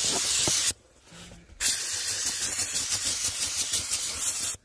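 Karcher SC2 steam cleaner's hand gun jetting steam onto a rubber car footwell mat with a loud, steady hiss. The hiss cuts off suddenly under a second in as the steam trigger is let go, and after about a second it starts again for about three seconds before cutting off once more.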